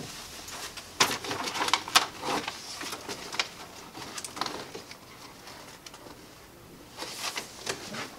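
Plastic protective wrapping rustling and crinkling as it is handled and pulled away. It comes in irregular bursts, thickest for the first few seconds and again briefly near the end.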